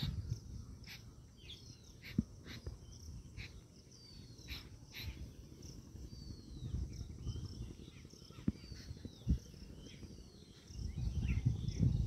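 Birds calling: short harsh notes from jungle babblers and a short, high falling whistle repeated about every second and a half. A low rumble on the microphone swells near the end.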